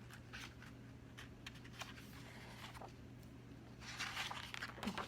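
Quiet handling of a picture book: a few faint clicks, then about four seconds in a brief rustle of paper as a page is turned. A low steady hum sits underneath.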